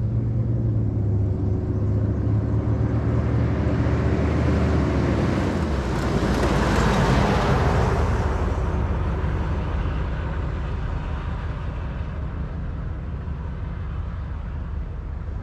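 Humvee's diesel V8 running through a MagnaFlow muffler in place of straight pipes, driving past. A steady engine note at first grows to its loudest about seven seconds in, then fades as it moves away.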